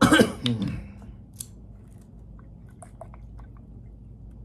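Close chewing and biting on a braised pig's trotter: soft wet clicks and smacks spread through. It opens with a short loud burst that carries a falling, voice-like sound.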